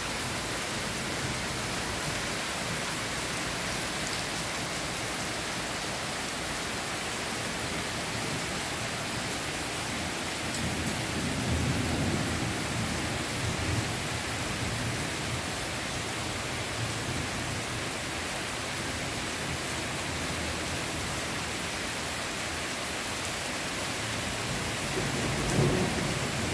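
Heavy downpour hissing steadily on trees and garden foliage. Low thunder rumbles for a few seconds about eleven seconds in, and again briefly near the end.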